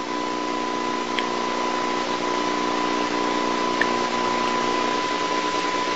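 Steady hiss with a thin, high, steady tone and a low hum under it, unchanging throughout: the background noise of an old videotape recording, with no other sound.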